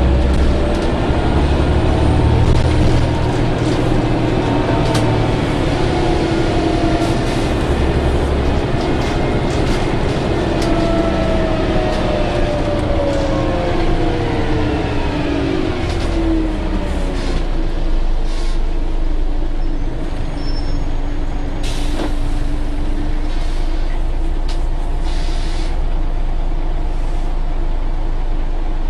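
Scania OmniCity articulated bus (N94UA) heard from inside the saloon: its diesel engine note falls away as the bus slows in the middle of the stretch, then settles into a steady idle. Short air-brake hisses follow, the strongest a few seconds after it starts idling.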